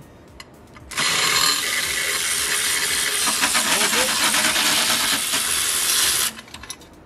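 Pneumatic air ratchet running on an exhaust header bolt: a loud hiss of exhausting air with a fast metallic clicking from the ratchet, starting abruptly about a second in and stopping about five seconds later.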